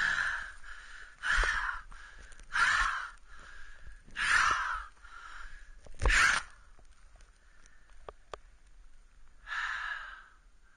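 A man breathing heavily into a close microphone, five loud breaths in quick succession, then a lull and one more breath near the end.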